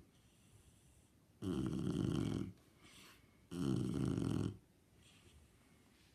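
Shar pei dog snoring in its sleep: two loud snores, each about a second long and about two seconds apart, with a faint breath between them.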